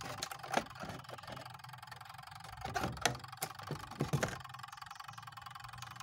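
Scattered clicks and knocks from an analog multimeter and its test probes being handled against a washing-machine timer's pins, in three short clusters: near the start, around three seconds in, and just after four seconds. A steady faint hiss runs under them.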